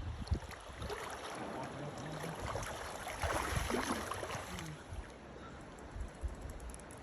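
River water splashing and sloshing, building about a second in and loudest for a second or so around three to four seconds in, then easing off, with low rumbles underneath.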